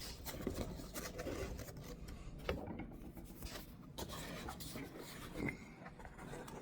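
Product packaging being handled and opened: soft rubbing and scraping with a few faint clicks.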